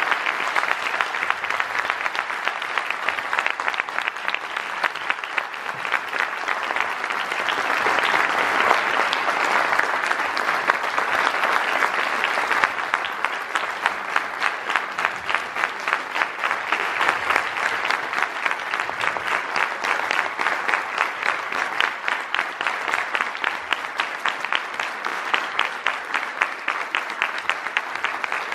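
Theatre audience giving curtain-call applause: sustained, dense clapping that swells about eight seconds in, then carries on steadily.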